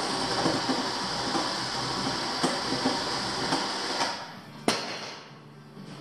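ATV electric winch motor running as the new handlebar switch is tested. It stops about four seconds in, followed by a single sharp click.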